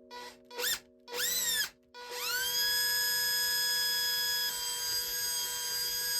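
Electric drill pulsed three times in quick succession, its motor whine rising and falling with each squeeze of the trigger. About two seconds in it spins up and runs at a steady high whine.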